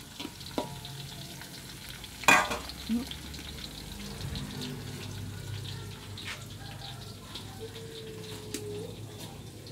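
Greens frying in a steel wok over a wood fire, a steady sizzle, with a sharp knock about two seconds in and a couple of lighter knocks around it.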